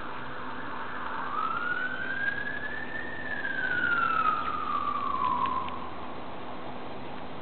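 An emergency vehicle siren wailing in the distance: one slow rise in pitch followed by a longer, slower fall, over steady background noise.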